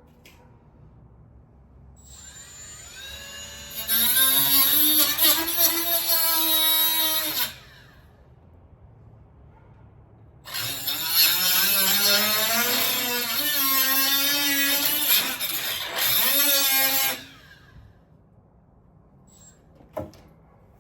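Handheld electric cutting tool running in two spells while cutting out a sheet-material fender filler piece: each time the motor winds up with a rising whine, then runs steadily for several seconds before winding down. A single sharp click near the end.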